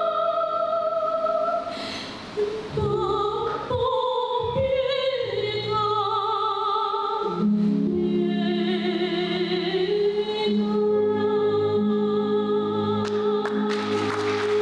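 A woman singing opera in a classical soprano style, with long held notes and vibrato, closing on a long sustained note. Applause begins near the end.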